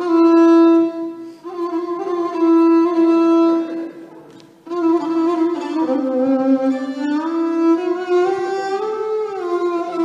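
Solo violin playing slow, sustained notes: a held phrase, a short break about four seconds in, then a phrase that slides down in pitch and back up.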